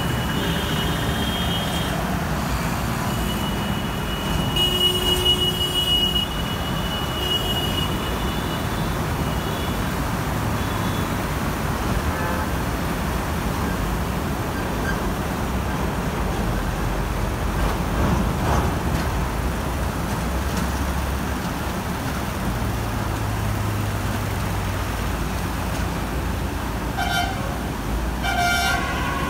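Road traffic on a flooded road: engines running and tyres churning through standing water. Vehicle horns honk: a high horn about a second in, a longer one from about 3 to 8 seconds, and another near the end.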